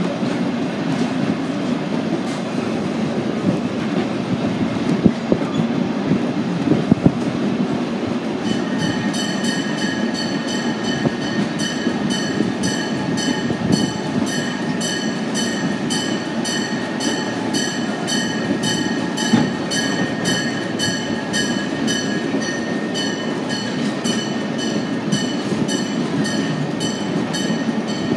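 Railroad passenger car rolling along the track, a steady rumble with a few clunks. About eight seconds in, a bell starts ringing in quick, even strokes, two or three a second, and keeps on.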